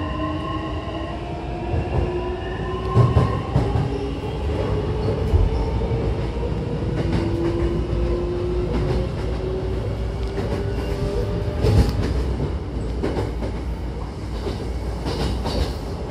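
Hankyu electric train heard from inside the car while running between stations: the motor whine rises in pitch as it gathers speed, over a steady rumble of wheels on rail. A few sharp knocks and clacks come from the wheels over rail joints.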